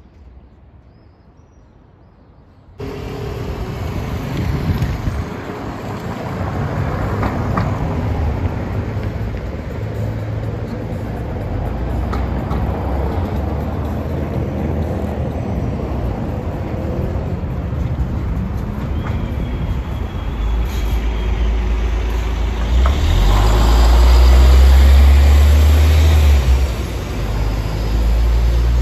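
Low vehicle engine rumble with road noise, starting suddenly about three seconds in and running steadily, growing louder for a few seconds near the end.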